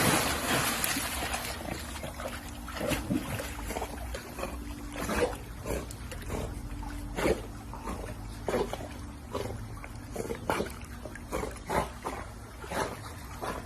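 A dog making a series of short, irregular sounds.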